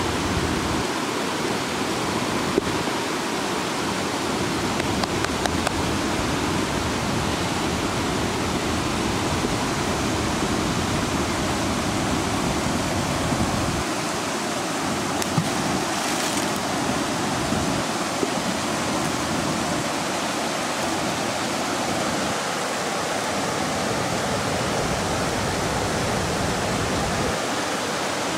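Steady rushing of river water pouring over a low weir.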